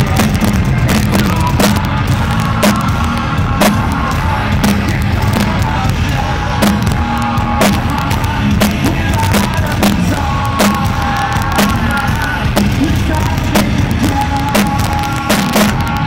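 Loud live rock band playing, with a steady drum beat from the drum kit and held instrument tones over a heavy low end.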